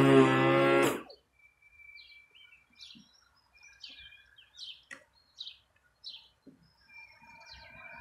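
Ruris RXi 3000 battery-powered electric lawn mower's motor running with a steady hum, then switched off about a second in and stopping quickly. Small birds chirp in the quiet that follows.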